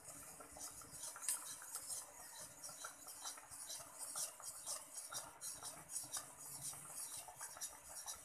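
Pork steak in soy-based sauce simmering in a metal wok, the sauce bubbling with a quick, irregular patter of small pops and crackles over a faint hiss.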